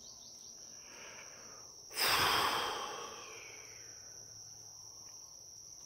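A loud breath out close to the microphone, starting sharply about two seconds in and fading away over about a second. A steady high-pitched insect trill runs behind.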